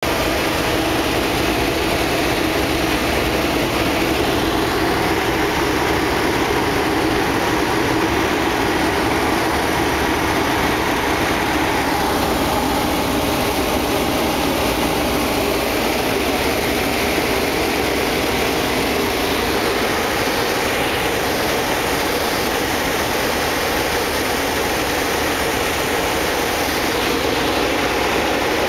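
Cockpit noise of a Yak aerobatic plane in flight: the radial engine's steady drone mixed with the rush of the slipstream, holding constant throughout.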